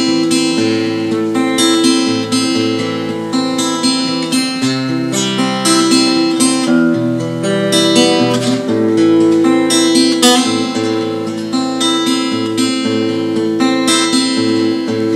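Acoustic guitar strummed and picked in a folk-song introduction, with ringing chords that change every second or two and no singing.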